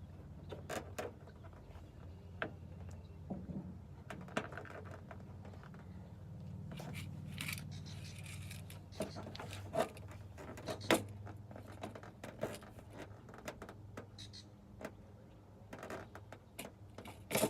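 Scattered light clicks, taps and knocks from parts and tools being handled, with a few sharper knocks, over a low steady hum.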